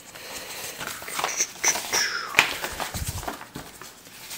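An old folded paper map being unfolded and flattened by hand: the stiff paper rustles and crackles, with sharp crinkling snaps through the middle.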